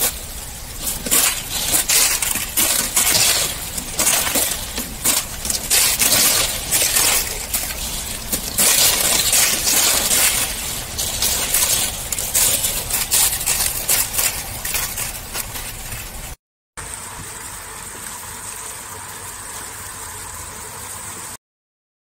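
Thin sheets of river ice cracking and tinkling like breaking glass as they are swept over a weir, with a constant stream of small clinks over rushing water. After a brief break near the end, a steadier hiss with a faint high tone.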